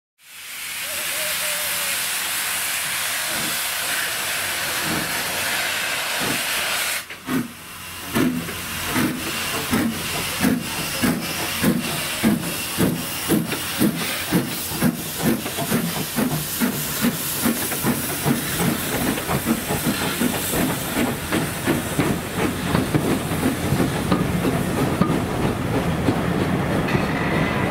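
A steam locomotive hisses steadily with escaping steam for about seven seconds. The hiss cuts off, then the engine starts away: its exhaust beats chuff about one and a half times a second at first and gradually quicken as it gathers speed.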